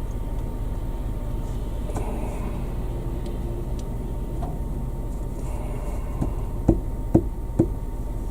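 Steady low road and engine rumble of a moving car, heard from inside the cabin, with three sharp thumps about half a second apart near the end.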